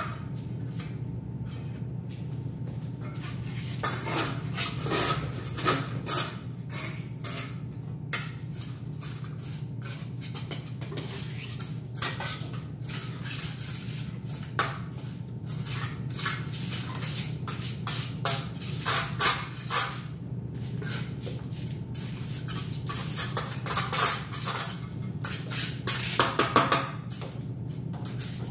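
Steel trowel scraping and clinking in a bucket of tile mortar and spreading the mortar across the back of a ceramic tile, in irregular scrapes and taps, over a steady low hum.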